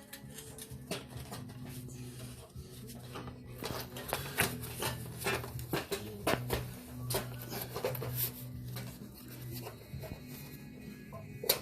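Scattered light clicks and taps of small engine parts being handled and fitted back together during carburetor reassembly, over a low steady hum.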